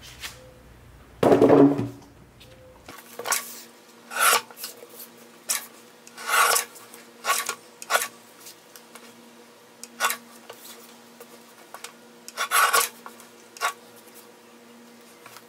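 Paper trimmer cutting sheets of waterslide decal paper into strips, in a string of about ten short cutting strokes as the blade is run along the rail and the paper is shifted, the loudest about a second and a half in.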